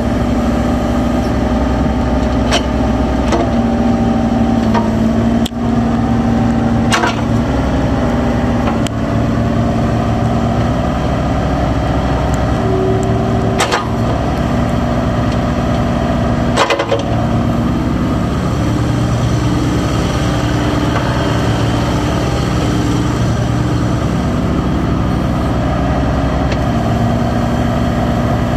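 Bobcat E35i mini excavator's diesel engine running steadily while the hydraulics work the boom, arm and bucket, with a whine that shifts in pitch as the controls are moved. Several sharp knocks come through in the first two-thirds.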